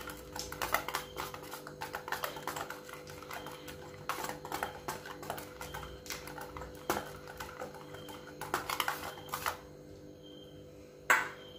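Wire whisk beating a thin wheat-flour and egg batter in a stainless steel bowl: rapid, irregular clicking of the wires against the bowl, stopping about nine and a half seconds in.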